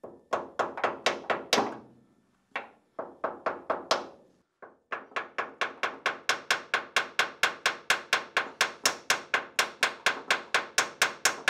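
Rapid light hammer taps, about four a second, driving a splined steel hinge pin home into a Porsche 911 door hinge with a tape-wrapped hammer. The pin is already seated with no play and is being tapped fully in. The taps come in two short runs, then a steady run from about five seconds in.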